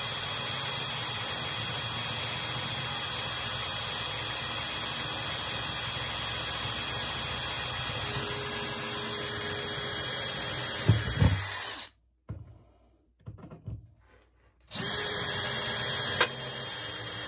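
Electric drill boring a small pilot hole for a pop rivet, running steadily for about twelve seconds with a couple of knocks near the end of the run, then stopping and starting again for a few seconds near the end.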